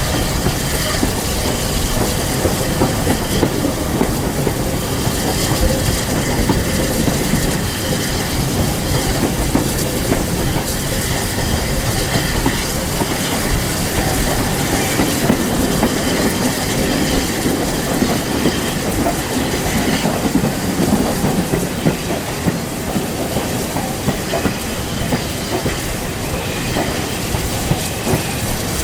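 Heritage railway train running along the track: a steady rumble with wheels clicking over the rail joints.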